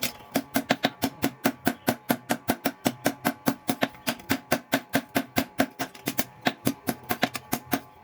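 Mechanical power hammer pounding steel in a fast, even rhythm, about five blows a second, each strike ringing briefly.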